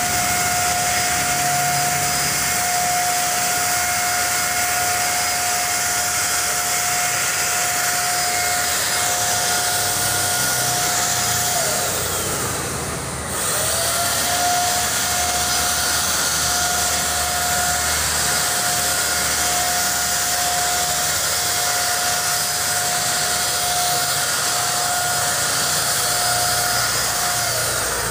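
Handheld electric Multipro paint spray gun running with a steady high whine and hiss while spraying paint. About twelve seconds in it winds down and stops, then starts up again a second or so later and runs on.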